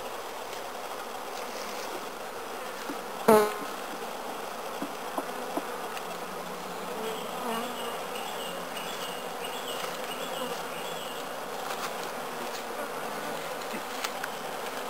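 Honeybees buzzing steadily around an open hive as its frames are worked, with a brief loud sound about three seconds in.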